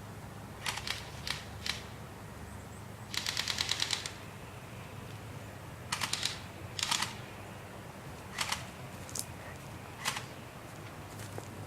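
Airsoft guns firing: scattered single sharp shots, with a short rapid burst of about ten shots a second a little after three seconds in.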